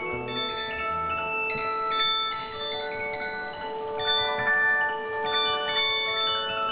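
Instrumental stage-musical accompaniment with no singing: bright, bell-like chiming notes in quick succession over a held lower note.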